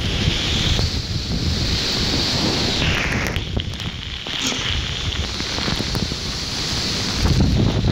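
Heavy thunderstorm rain pouring down in strong gusting wind, the wind buffeting the microphone with a low rumble under the steady hiss of the rain.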